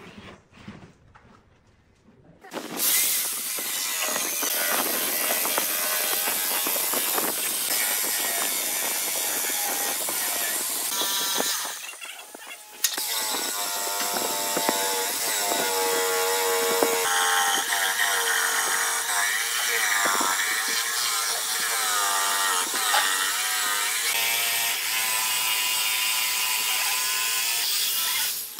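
Corded jigsaw cutting along a curved outline in a thick wooden board. The saw starts about two and a half seconds in, stops briefly around twelve seconds, then runs on, its whine shifting in pitch.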